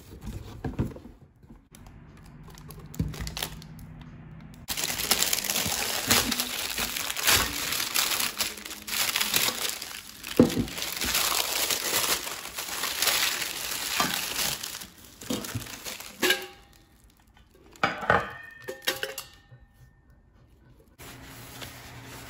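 Plastic bag crinkling and rustling as it is pulled off a stainless steel oil strainer pot. It is loud and continuous through the middle, with quieter handling of the box before it and a few knocks and clicks near the end.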